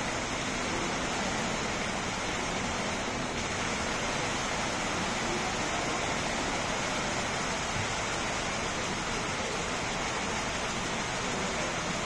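Computer-controlled synchronized waterfall, its water curtain falling steadily into the basin: an even, unbroken splashing hiss.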